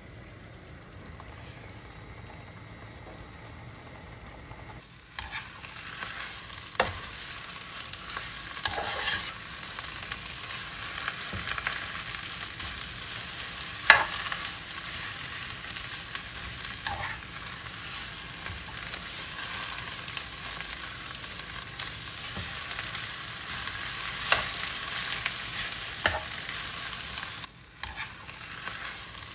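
Pork soup sizzling and bubbling in a wok, with a utensil stirring and clinking a few times. The sizzle is quieter at first and grows louder about five seconds in.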